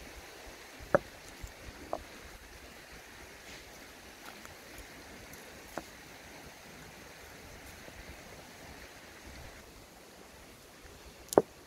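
Large river stones being turned over and moved by hand, giving about four sharp stone-on-stone knocks, the loudest about a second in and near the end, over a steady low outdoor hiss.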